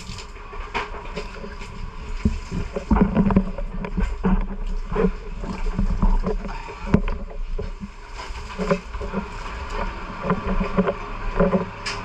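A steady low engine-like drone with scattered knocks and clatter, and faint voices in the background.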